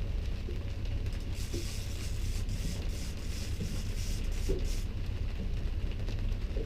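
A fishing boat's motor running steadily at trolling speed, a low rumble, with hissing noise higher up that swells and fades.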